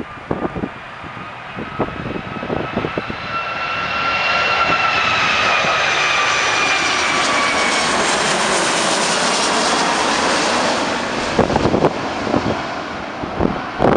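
Boeing 757-200's twin turbofan engines passing overhead on landing approach: the jet roar builds and is loudest from about four seconds in, with a high whine sliding slowly down in pitch as it passes, then fades after about eleven seconds. Wind buffets the microphone at the start and near the end.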